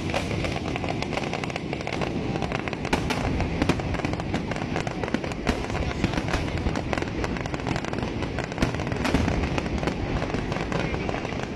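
Aerial fireworks display: many shells bursting at once, a dense, unbroken run of bangs and crackles.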